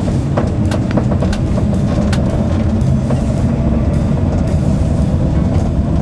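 Road and engine noise inside the cab of a moving van: a loud, steady low rumble, with a few sharp clicks or rattles in the first couple of seconds.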